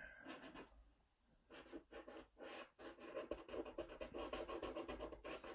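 Marker pen nib scratching back and forth on paper, colouring in a solid black area. A short burst at the start, a brief pause, then a steady run of quick short strokes from about a second and a half in.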